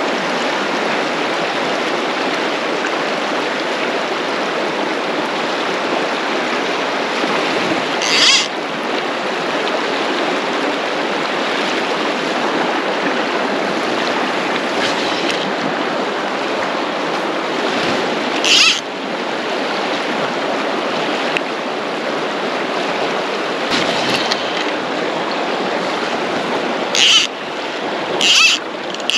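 Fast river water rushing over a rocky bed: a steady hiss. Cut by a few short, high-pitched sounds, one about 8 seconds in, one about 18 seconds in and three in quick succession near the end.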